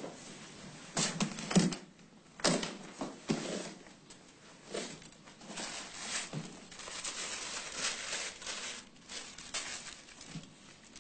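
Handling noises from a suitcase on a wooden table: a few separate knocks and clicks, the loudest about a second and a half in, then rustling as things inside are handled and taken out.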